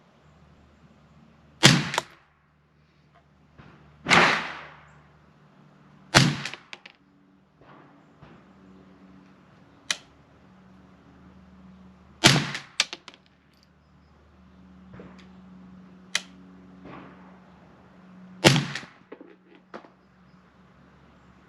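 Ruger 10/22 semi-automatic .22 LR rifle firing Norma TAC-22 ammunition, five loud shots a few seconds apart, with several fainter sharp cracks in between.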